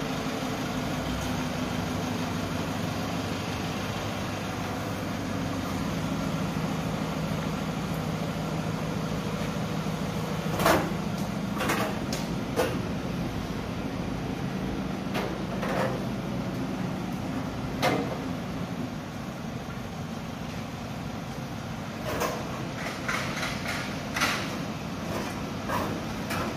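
Toyota Hiace van idling with a steady hum. Scattered knocks and metal clinks come through it, a few in the middle and a cluster near the end, as metal banquet chairs are handled and loaded into the van's open rear.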